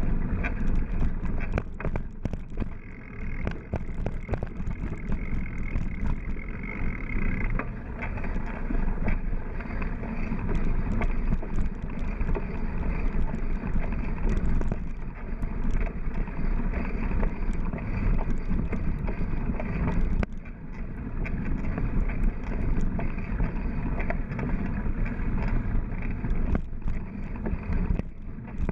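Mountain bike rolling over a dirt trail: steady rumble of tyres on dirt and wind on the microphone, with frequent small rattles and knocks as the bike bounces over bumps.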